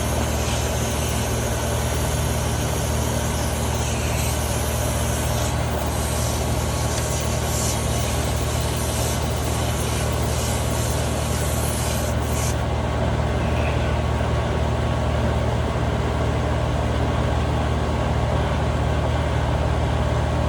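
Steady low mechanical hum of a running machine, with a hiss on top that stops about twelve seconds in.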